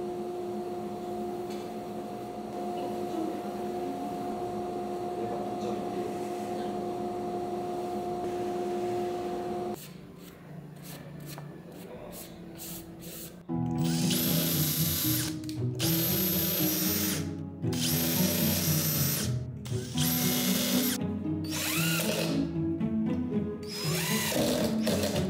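Background music with long held notes; from about halfway, a Makita cordless impact driver runs in about half a dozen bursts of a second or two each, driving screws into wooden panels, over the music.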